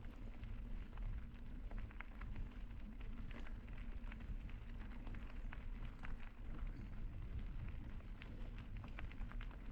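Mountain bike tires rolling slowly up a steep road, with many small irregular crackles from the road surface over a steady low rumble.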